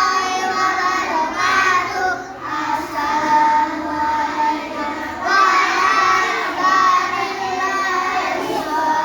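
A group of young children singing together in unison, a continuous sung chant broken only by short pauses for breath.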